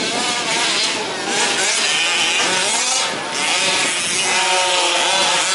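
Several 1/5th-scale petrol two-stroke RC off-road trucks racing, their engines revving up and down with overlapping, shifting pitches.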